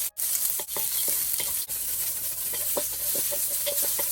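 Thinly sliced carrots sizzling in hot oil in a wok while being stirred, with many short scrapes and taps of the stirring utensil against the pan. The sound cuts out briefly just after the start.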